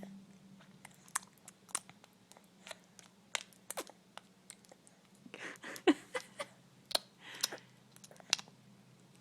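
Lip noises: scattered short, wet lip smacks and mouth clicks, a dozen or more at uneven intervals, with a couple of brief breathy puffs near the middle.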